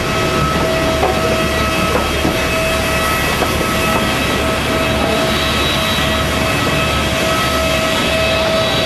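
Steady turbine whine from a parked jet airliner, several high tones held level over a low rumble.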